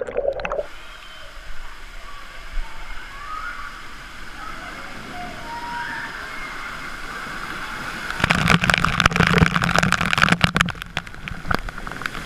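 Water sloshing and gurgling close to the microphone, with a louder stretch of splashing about eight seconds in that lasts a couple of seconds.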